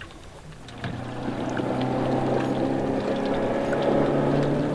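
Bass boat's electric trolling motor running: a steady low hum with a whine that comes on about a second in and builds slightly.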